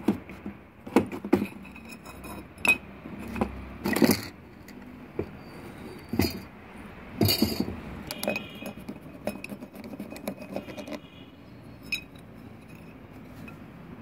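Rusted metal parts of a vintage foot air pump being handled and taken apart: irregular clinks, knocks and scrapes of metal, with several louder knocks scattered through.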